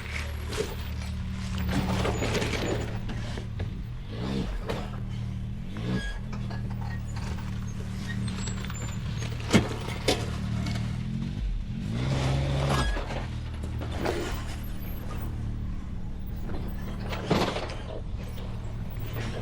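Off-road vehicle engine running slowly over rocks, revving up and back down twice, with a couple of sharp knocks about halfway through.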